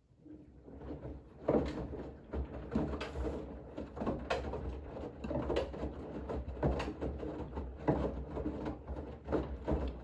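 Bosch front-loading washing machine drum turning in a wash cycle, with a steady low motor hum and wet laundry and water sloshing and thudding irregularly inside. It starts from quiet and builds over the first second or so.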